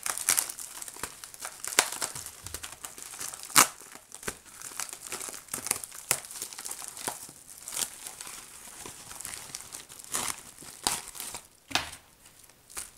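Shiny metallic plastic mailer being torn open and handled, crinkling and crackling in irregular bursts, with one loud crackle about three and a half seconds in.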